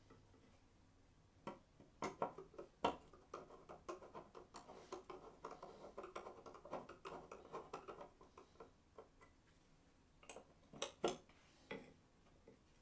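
Quiet clicking and tapping of small metal hand-tool parts being handled, with a dense run of quick ticks through the middle and a few sharper knocks near the end.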